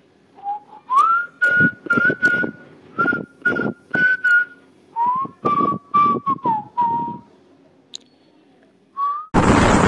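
A whistled tune of short, repeated notes over a light percussive beat, a music jingle, with a brief high blip near the end.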